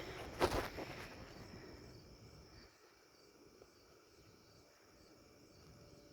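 Faint, steady chirping of insects in the background, with a brief rustling knock about half a second in.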